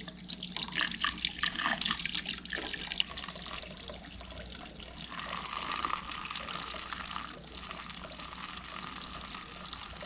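Distilled white vinegar poured from a gallon plastic jug through a plastic funnel into an electric tankless water heater's inlet to descale it. It splashes and gurgles unevenly for the first few seconds, then settles into a steady trickling stream.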